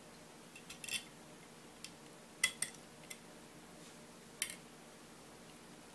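Small stainless-steel screws and parts of a Marlin 336SS lever-action rifle clinking and clicking as they are handled and set down: a few sharp, light clicks, the loudest pair about two and a half seconds in.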